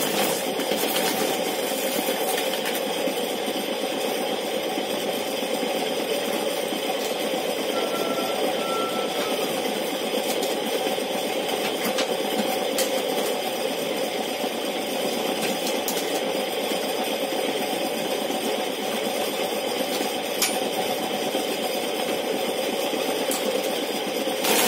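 Old motor-driven corn sheller running empty, its disc spinning with no cob against it: a steady mechanical hum.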